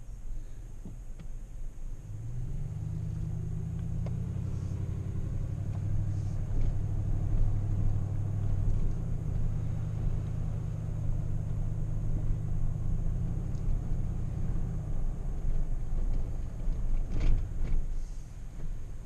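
Car engine and road rumble while driving, with a steady low engine note from about two seconds in that fades out near the end. Two sharp clicks come a little before the end.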